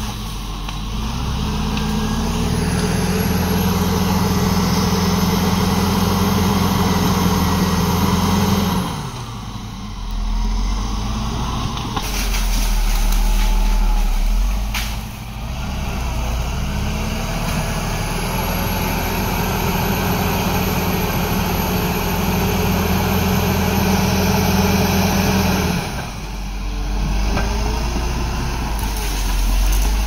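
Caterpillar D7R bulldozer's diesel engine working under load as it pushes into brush. It revs up twice, about a second in and again about halfway through. Each time it holds steady for several seconds with a high whine over it, then drops back briefly.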